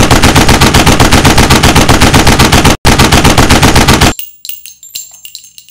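Machine-gun fire sound effect: a long, very loud rapid burst of about eight to ten shots a second, broken by a brief pause, that stops about four seconds in. Scattered light metallic clinks and rings follow.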